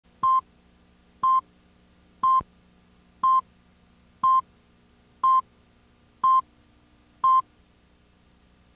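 Tape-slate countdown beeps: eight short, identical, high beeps, one a second, each marking a number of the countdown, over a faint steady hum.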